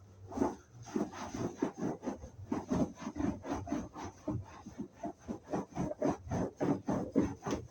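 Damp, soapy sponge being scrubbed back and forth over a fabric sofa seat, in quick, even rubbing strokes of about three or four a second.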